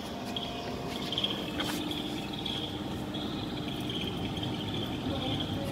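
FR900 continuous band sealer running with its heater off, the conveyor and drive still turning to cool the sealing bands: a steady motor hum with a high, wavering whine. A single click about a second and a half in.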